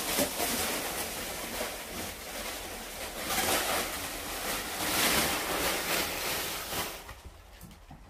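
Plastic protective film being pulled and stripped off a refrigerator, a continuous rustling and crinkling that swells a couple of times and dies down about seven seconds in.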